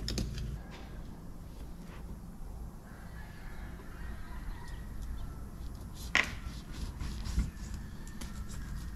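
Chickens clucking, with a short sharp knock about six seconds in.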